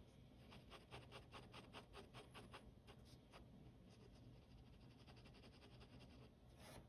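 Ballpoint pen hatching on sketchbook paper: faint, quick scratchy strokes, about four a second, easing off after about three seconds. A short brush of the hand or pen across the paper comes near the end.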